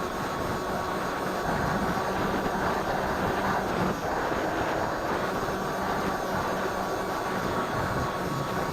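Electric motor and propeller of a Firebird Stratos RC plane running steadily in flight, a thin steady whine over a heavy rush of wind noise.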